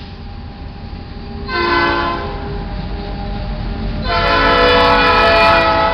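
Norfolk Southern SD40-2 locomotive's air horn sounding several notes at once: a short blast about a second and a half in, then a longer, louder blast from about four seconds in until just before the end. Under both runs the low, steady rumble of the passing diesel locomotives. The short-then-long pair is the close of a grade-crossing horn signal.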